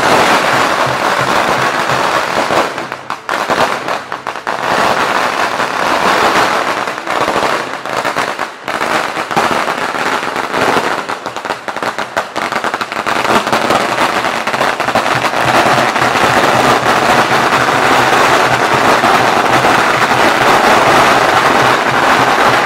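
Strings of firecrackers going off in a loud, rapid, continuous crackle, with brief lulls about three and eight seconds in.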